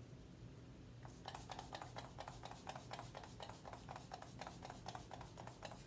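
A pump bottle of MAC Fix+ setting spray misting over a made-up face. It gives many short, hissy spritzes in quick succession, starting about a second in.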